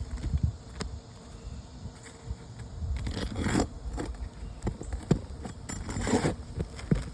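A metal pry tool working under roof shingles to free a roofing nail: two scraping strokes a few seconds apart, with light metal clicks and knocks between them.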